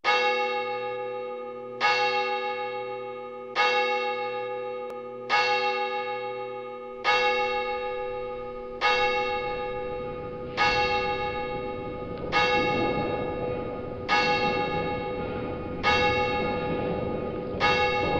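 A single bell tolling slowly and evenly, about one stroke every second and three-quarters, each stroke ringing on and fading before the next. About seven seconds in, a low rumbling drone comes in beneath the strokes.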